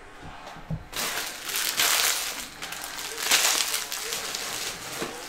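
A stack of trading cards being handled, with rustling and crinkling in bursts starting about a second in, loudest twice.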